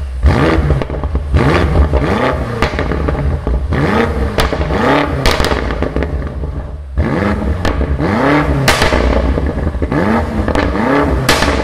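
BMW M5 Competition's 4.4-litre twin-turbo V8 revved in several short blips through its quad exhaust, each rev rising and falling in pitch. Sharp pops and crackles come as the revs drop.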